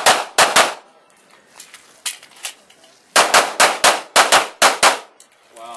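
Semi-automatic pistol shots in rapid fire: three quick shots, a pause of about two and a half seconds, then a fast string of about eight shots.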